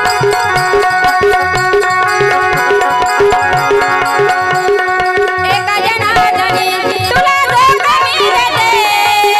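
Marathi gavlan devotional song: a harmonium holds steady notes while a hand drum keeps an even beat. About five and a half seconds in, a woman's voice comes in singing an ornamented, wavering melody.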